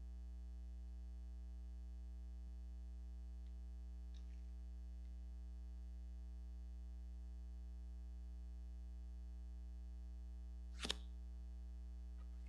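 Steady low electrical mains hum with its evenly spaced overtones, picked up by the sound system in a pause between items. A short double click sounds near the end.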